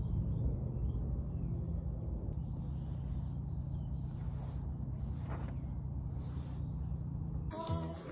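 Outdoor ambience of birds chirping in short, high, repeated calls over a steady low rumble, which cuts off abruptly near the end.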